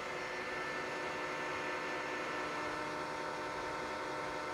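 Metal lathe running at a steady spindle speed: an even hum with several steady whining tones from its motor and drive.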